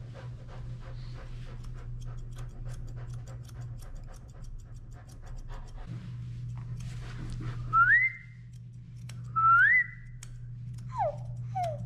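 Grooming scissors snipping in quick fine clicks over a steady low hum, then a doodle whining: two loud rising whines in the second half and short falling whimpers near the end, as the dog protests having its paw trimmed.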